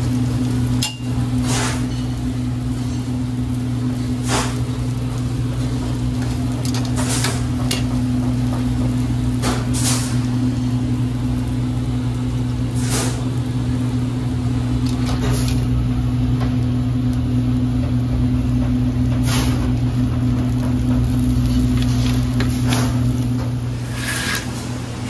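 Steady low machine hum, with scattered sharp clicks and knocks over it.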